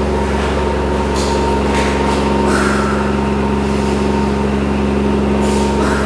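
A loud, steady low hum made of several unchanging tones, with a few short breathy hisses over it.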